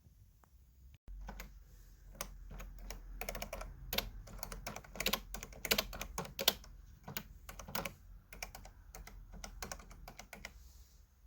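Keys of a Canon Typestar 10-II electronic typewriter being typed on, an irregular run of clicks starting about a second in. Only the keys are heard, with no printing.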